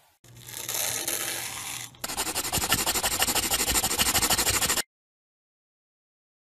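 A papery rustle and slide for about two seconds, then a crayon scribbling on paper in quick, evenly repeated strokes for nearly three seconds, cutting off suddenly.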